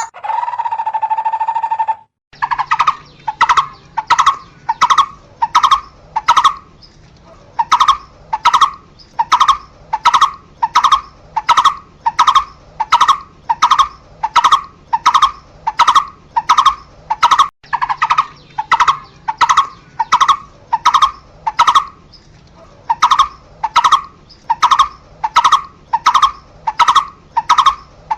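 A barbet calling, repeating one short note about twice a second in long series with brief pauses about a quarter of the way in and again near three quarters. A held, steady tone fills the first two seconds before the series starts.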